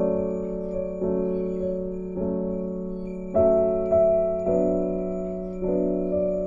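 Soft, slow background piano music: sustained chords struck about once a second, each fading slowly.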